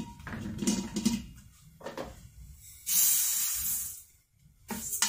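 Dry millet grains poured into a stainless steel pressure-cooker inner pot, a steady rushing hiss of grain on metal lasting about a second, just past the middle. Light knocks of the glass bowl and spoon come before it, and more knocks and scrapes near the end.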